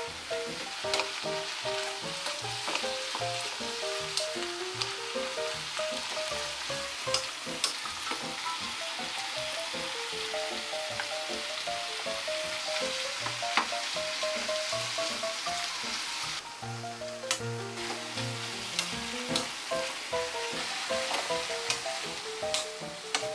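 Sliced shiitake mushrooms, wood ear mushrooms and vegetables sizzling in a hot oiled pan while being stir-fried with a wooden spatula, with frequent sharp clicks of the spatula against the pan. The sizzle drops out briefly about two-thirds of the way through.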